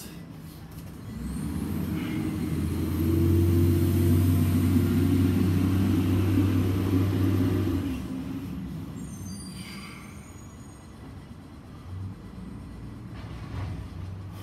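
Low rumble of a passing motor vehicle. It swells over the first few seconds, holds, then falls away about eight seconds in, and a few brief high squeals follow.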